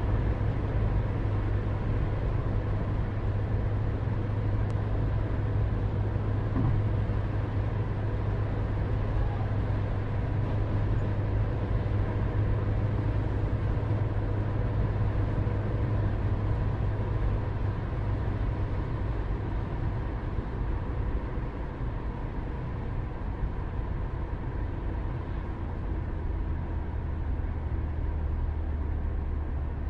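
Steady low rumble with faint steady hum tones above it; the deepest part of the rumble drops slightly in pitch about two-thirds of the way through.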